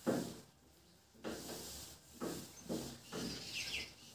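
A whiteboard eraser wiping the board in repeated rubbing strokes. Near the end a bird gives a few quick, falling chirps.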